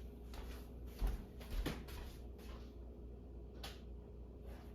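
Kitchen utensils being handled: two dull knocks about a second in, then scattered light clicks and clatters.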